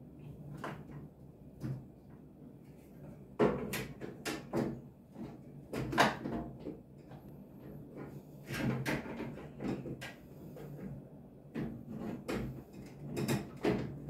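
Irregular knocks, clicks and clatter of washing machine body parts being handled and fitted back in place during reassembly, the loudest knocks about three and a half and six seconds in.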